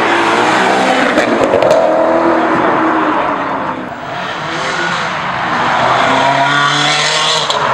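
High-performance car engine revving hard as it accelerates away, its pitch rising and falling through gear changes, with a short lull about four seconds in before it climbs again.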